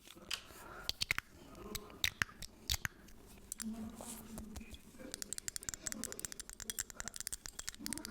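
Close-miked ASMR tapping and handling: scattered sharp taps and clicks, then, from about five seconds in, a fast, even run of light taps, several a second.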